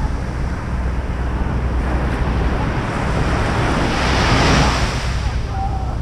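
Sea surf washing ashore, with wind buffeting the microphone in a steady low rumble; the surf swells louder a little after the middle.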